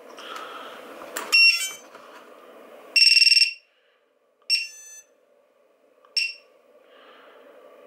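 A battery's XT60 connector clicks home. Then a flight controller's piezo beeper sounds its loud power-up beeps: a quick run of short chirps, a half-second beep, and two short beeps, which show the buzzer is working.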